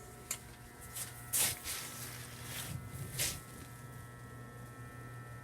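A steady electrical buzzing hum, with a few brief clicks in the first three seconds or so.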